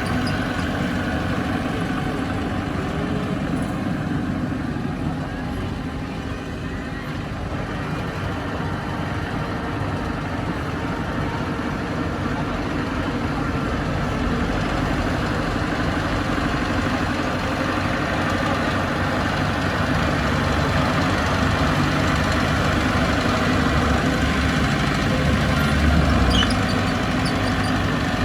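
Heavy diesel engine of earthmoving machinery running steadily, with a brief rise in level near the end.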